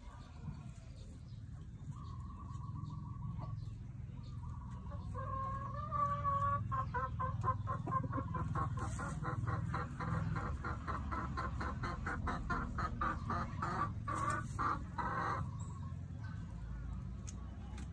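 Hen calling as she lays an egg in the nest: a few drawn-out calls, then from about a third of the way in a long run of quick clucks, about five a second, that stops near the end.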